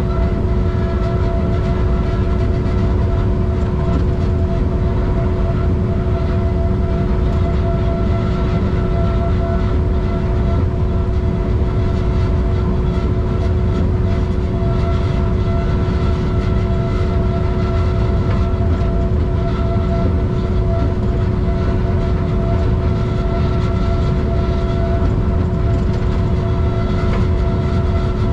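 Car cruising at a steady speed: constant low road and wind rumble with a steady drone held at one pitch.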